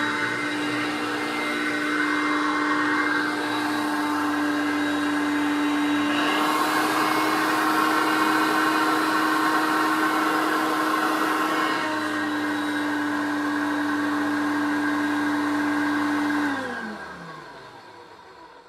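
1980 Hoover Concept One U3101 upright vacuum cleaner running with a steady motor hum and rush of air, growing brighter for several seconds in the middle. Near the end it is switched off and the motor winds down, its pitch falling as it fades. The owner thinks this motor is somewhat failing.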